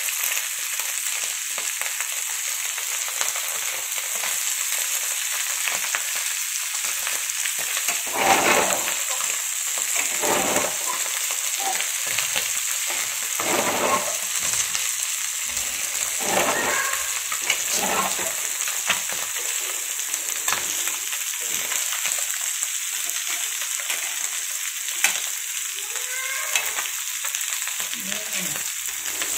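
Rava-coated small fish shallow-frying in oil on a flat pan, a steady hissing sizzle that swells louder several times. A couple of sharp clicks come near the end.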